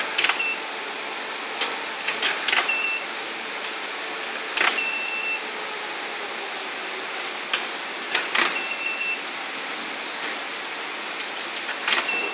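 Coins dropping into a milk vending machine's coin acceptor with sharp clicks, each followed by a short high electronic beep as the machine registers it. This happens five times, a few seconds apart.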